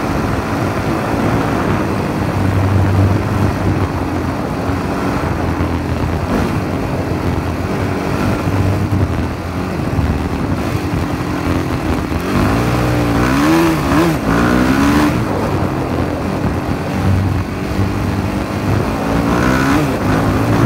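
Freshly rebuilt WR 450 dirt bike engine running on a ride, its pitch rising and falling as it is revved several times about twelve to fifteen seconds in.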